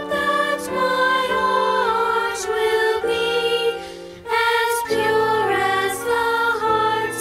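A slow song being sung, the voice holding notes that move in steps from one to the next, with a short break about four seconds in.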